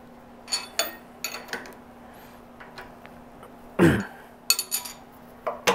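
Steel planishing hammer dies clinking and clicking as they are handled and seated in the hammer: a few light metal clicks, a louder clunk about four seconds in, then more clicks, over a faint steady hum.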